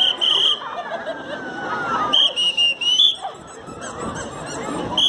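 Seated audience chuckling and chattering, with a high-pitched tone pulsing about four to five times a second that stops, returns for about a second midway, and starts again near the end.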